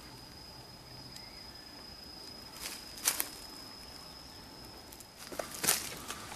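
Footsteps crunching on dry leaf litter, a few steps about three seconds in and again near the end, over a steady high-pitched insect call that stops a little after five seconds.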